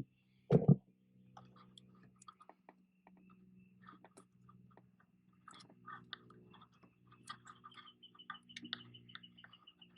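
Electrical tape being pulled off the roll and wrapped around wire connectors: faint, irregular crackling and clicking, turning into a quick row of small ticks near the end. A short thump about half a second in, over a faint steady hum.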